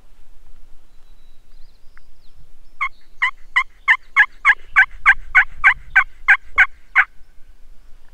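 Wild turkey yelping: a long, loud run of about fourteen evenly spaced yelps, three to four a second, starting about three seconds in and stopping about seven seconds in.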